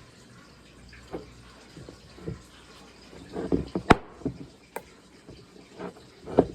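Scattered light knocks and clicks from small parts and tools being handled on a workbench, with a sharp click about four seconds in and another shortly after.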